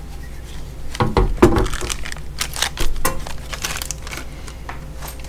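Handling noise from an LED light bar fitted with mounting brackets, set down on a work surface with a dull thump about a second in, followed by light clicks and crinkling.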